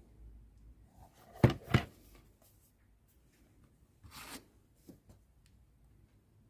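Handling noise from an item being picked up or set down: two quick knocks close together about a second and a half in, then a short rustle and a small click.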